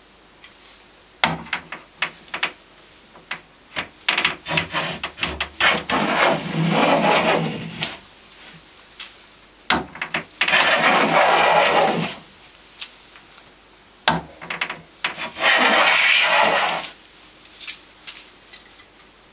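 Stanley No. 72 chamfer plane cutting along a board's edge. Several short, stuttering strokes and sharp knocks come first, then three long scraping passes of about two seconds each, separated by brief pauses and clicks.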